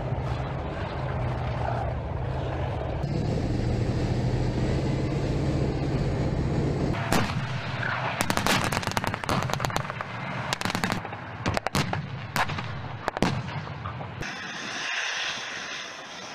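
Tank engines running with a steady low drone, then from about seven seconds in, gunfire: single sharp shots and fast runs of shots. Near the end this gives way to a steady hiss.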